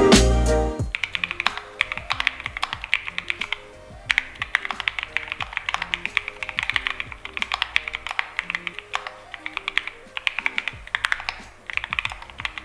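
Keychron Q10 Max mechanical keyboard being typed on quickly and steadily, a dense run of key clacks that thins out briefly twice, over soft background music.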